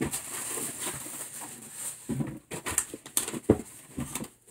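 Packing paper and a cardboard shipping box rustling as hands dig through it, then a few sharp knocks and thumps in the second half.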